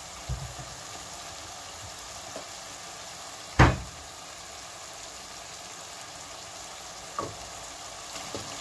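Chicken mince frying quietly in a pot, a steady faint sizzle, broken by a few sharp knocks; the loudest comes about three and a half seconds in.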